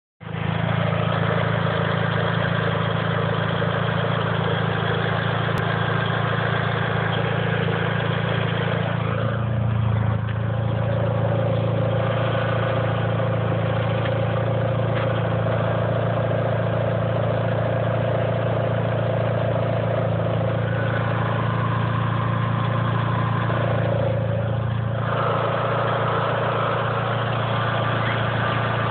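Mitsubishi 4G63 turbo four-cylinder in a second-generation Eclipse idling steadily, with a tick that the owner believes is lifter tick and an unidentified noise from under the car. The sound changes character about nine seconds in and again about twenty-five seconds in.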